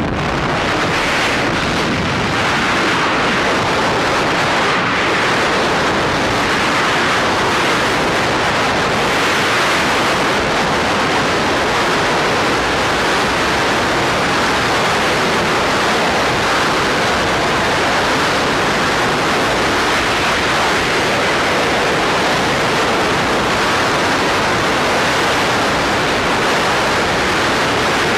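Freefall wind on the camera microphone: a loud, steady rush of air as a tandem skydiving pair falls.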